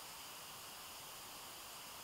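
Faint, steady hiss of room tone and recording noise, with no distinct sound.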